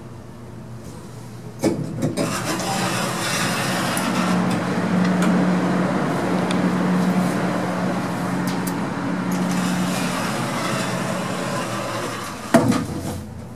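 A ship's passenger lift travelling between floors: a clunk as it sets off, about eleven seconds of steady running noise with a low hum, then another clunk as it stops.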